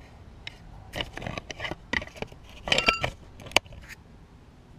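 A few light metallic clicks and short scrapes of tools and injector parts being handled on a 5.9L Cummins cylinder head during fuel injector fitting, with a brief ringing ping about three seconds in.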